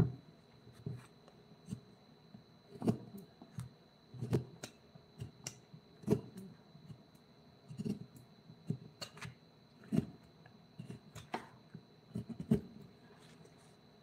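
Irregular light knocks and scrapes, roughly one a second, from hand work on a wooden carving, with a faint steady high whine behind.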